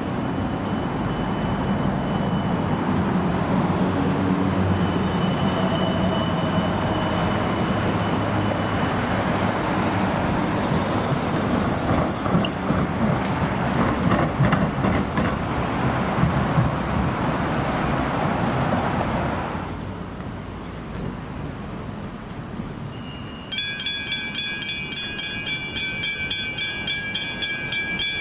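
Electric suburban train running through an at-grade level crossing, rumbling, with a spell of wheel clatter over the crossing rails midway; it fades out about two-thirds in. Late on, level crossing bells start ringing in a fast, steady rhythm.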